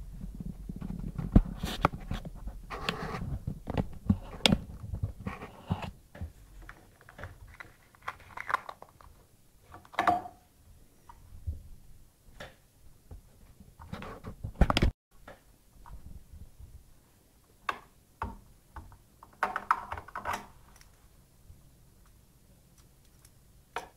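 Hands working the hook area of a home sewing machine: scattered clicks, taps and knocks of plastic and small metal parts as the front hook cover is opened and the parts are handled. A low rumble runs under the first few seconds.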